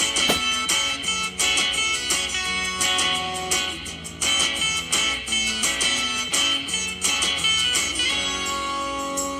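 Upbeat guitar-led background music. About a third of a second in, a single sharp pop cuts through it: a latex balloon bursting.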